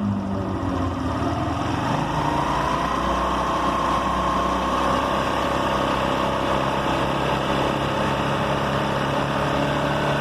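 Motorcycle engine revving up from a low run about two seconds in and held at medium-high revs, with a rattling noise and vibration that come in at those revs. The owner suspects the two gears inside the engine side cover.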